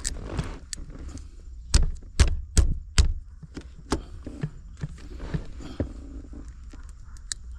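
Knocks and clicks of a new shift knob being pushed and tapped onto a Saab 900's gear lever, with four sharper knocks in quick succession about two seconds in; the knob has not yet seated.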